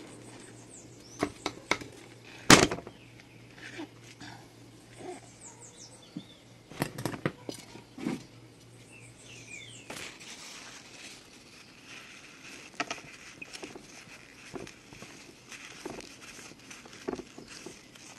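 Scattered knocks and clicks of a long kitchen knife cutting open a jackfruit on a wooden block, the loudest about two and a half seconds in, with birds chirping in the background.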